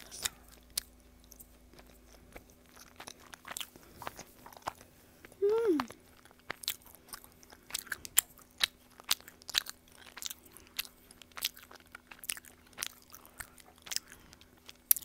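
Close-up chewing of sticky honey baekseolgi rice cake: wet mouth clicks and smacks, so chewy it makes the jaw ache. A brief falling hum of pleasure about five and a half seconds in.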